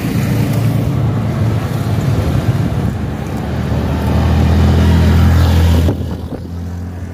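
A motorcycle tricycle's engine running steadily as it drives close past, loudest about four to six seconds in, then dropping off abruptly.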